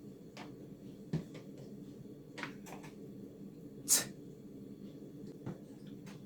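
Magnetic letters being placed onto a fridge door: a few light clicks and taps, the sharpest about four seconds in, over a low steady hum.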